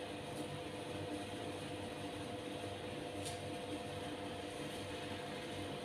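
Small electric motor of an aquarium power filter pump giving a steady, even hum with a faint steady whine over it.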